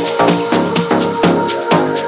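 Electronic dance music with a fast, steady driving beat.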